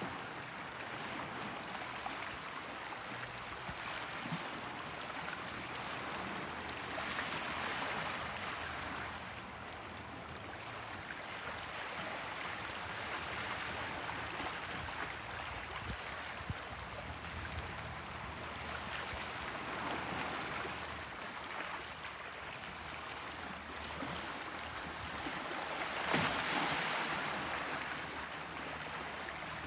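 Gentle sea waves washing onto the shore, swelling and easing about every six seconds, with the largest wash near the end.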